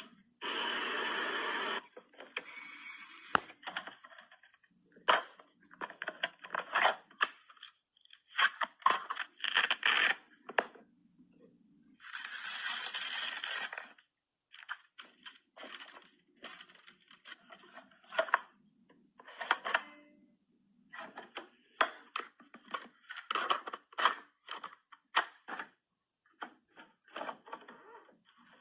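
Keys, buttons and mechanisms of old 1980s machines being pressed and worked: a string of uneven clicks, clacks and scrapes, with two steady whirring passages of about two seconds each, one near the start and one about halfway.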